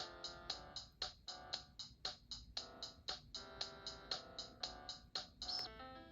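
Samsung SPH-A600 phone playing one of its preloaded ringtones: a synthesised tune of chords over a steady electronic beat, about four hits a second. It stops near the end and the next ringtone's melody begins.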